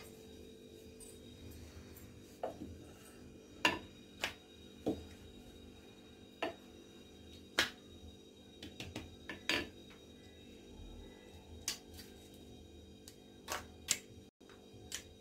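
Scattered light clicks and knocks from a rolling pin working paratha dough on a granite rolling board, and near the end a steel spoon tapping a steel bowl of egg filling, over a steady low hum.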